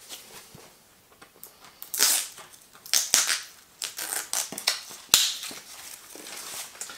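Board-game components being handled and moved aside: cardboard and plastic rustling and scraping in uneven bursts, with a sharp knock about five seconds in.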